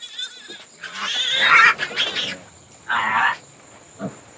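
Pigs squealing: one long squeal about a second in and a shorter one near three seconds.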